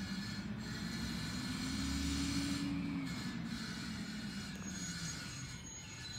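Peterbilt 320 garbage truck's diesel engine running, revving up about a second and a half in and settling back down, with a thin, steady high-pitched whine over it.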